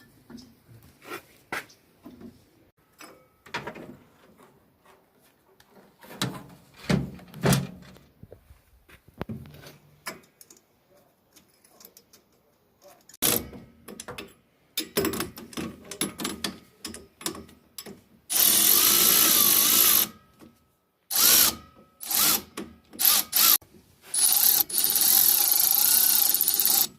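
Hand tools clicking and clanking in work on a carburettor, then two loud, steady bursts of a power tool, about two seconds long a little past the middle and about three seconds long near the end.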